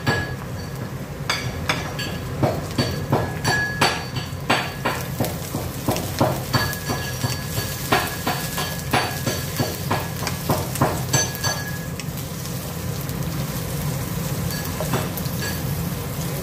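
Sliced chayote, carrot and onion sizzling in a nonstick wok as they are stir-fried, a wooden spatula knocking and scraping against the pan about twice a second. The spatula strokes stop about twelve seconds in, leaving only the steady sizzle.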